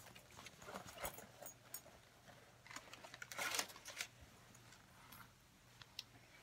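Faint rustling and scattered light clicks of hands handling a small purse and a plastic library card, with a louder rustle about three and a half seconds in.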